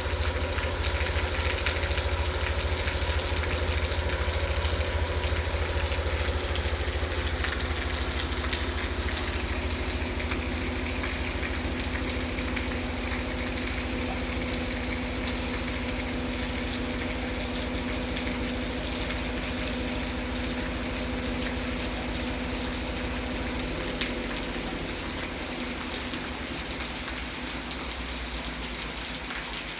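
Heavy rain falling steadily, a dense hiss over a steady low mechanical hum. The hum falls away near the end.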